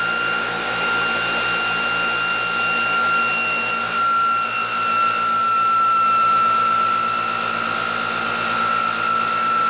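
Electric motors of a bench test rig, an EV drive motor coupled to a ReGen-X Quantum Motor, spinning steadily with a high whine over a low hum. About four seconds in the whine's tone shifts slightly and a higher tone joins it.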